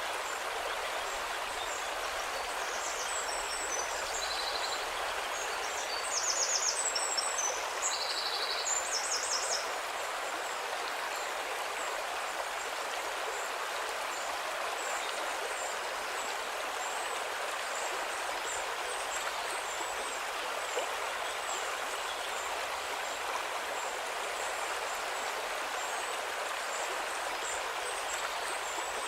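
River water flowing steadily, with a bird singing several short, high trilled phrases over it during the first ten seconds or so.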